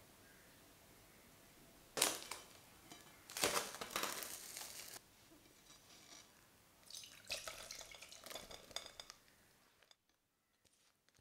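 Kitchen handling sounds of straining macerated apples. About two seconds in there is a sharp knock, then clattering of a glass bowl and a metal mesh strainer. Later the sugared apple slices are tipped into the strainer with a few seconds of crackly rustling.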